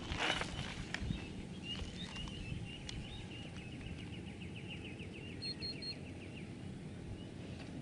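Wind rumbling on the microphone, with a bird giving a series of short high chirps that quicken into a rapid run midway through, and a brief rustle right at the start.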